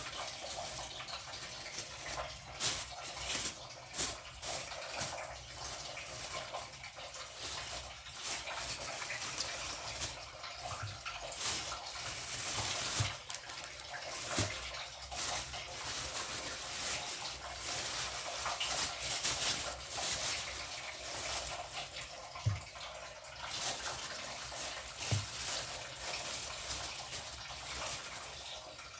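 Water running from a tap and splashing steadily, with scattered small clicks and knocks.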